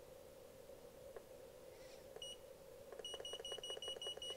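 Digital heating/cooling thermostat controller beeping with each press of its down button as the set temperature is stepped down. One short high beep comes about two seconds in, then a quick, even run of about five beeps a second near the end. Each beep carries a small button click.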